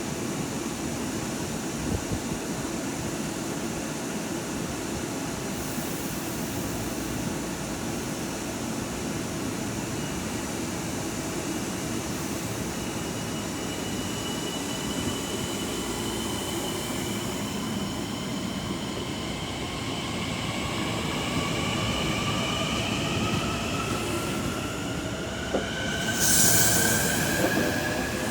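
LIRR M9 electric multiple-unit train pulling out of the station: a steady rumble of wheels on rail, then about halfway through its traction motors start a whine of several tones rising together as it accelerates. A short hiss comes near the end.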